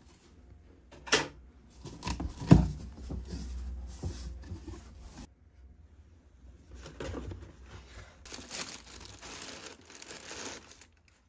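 Cardboard boxes being handled and opened, with a sharp knock about a second in and a louder thump about two and a half seconds in, then tissue paper crinkling and rustling as it is pulled back from a sneaker in its shoe box.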